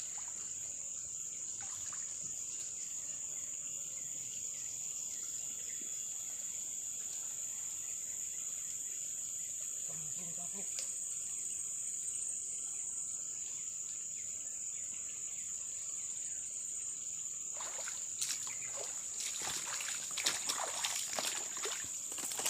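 Steady high-pitched drone of insects, with splashing in the shallows near the end.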